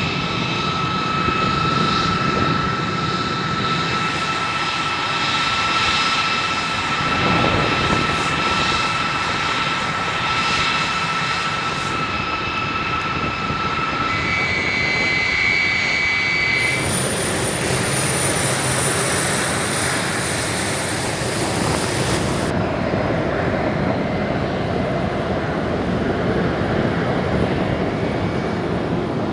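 Boeing KC-135 Stratotanker's turbofan engines running on the ground: a steady jet rush with a high, even whine on top. The whine changes abruptly a few times.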